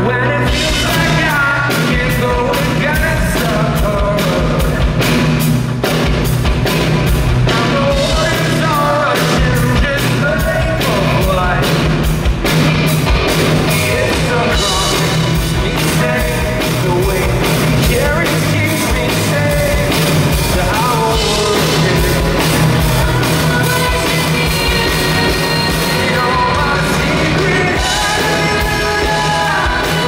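Live worship band playing a rock-style song: a man singing lead over electric guitar, bass and drums, with a steady beat.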